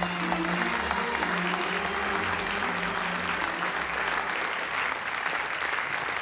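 A large audience applauding with steady clapping. Music carries on quietly under the clapping for the first few seconds, then fades away.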